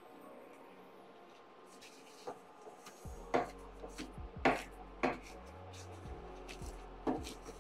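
Kitchen knife knocking on a cutting board in about half a dozen sharp, irregular strokes, mostly in the second half, as the stems and hard ribs are cut out of fresh fig leaves. A steady low hum comes in about three seconds in.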